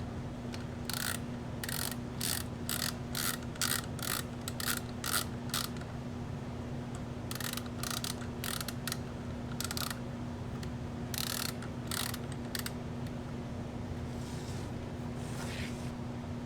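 Runs of short, sharp mechanical clicks, about two a second, from a small mechanism being worked, over a steady low hum.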